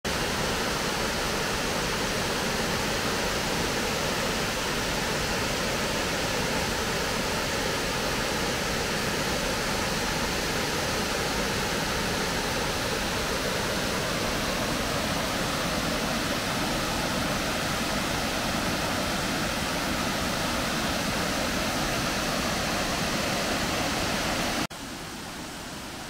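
Steady rushing of a large tiered waterfall cascading over rock ledges. It cuts off abruptly near the end to a much quieter background.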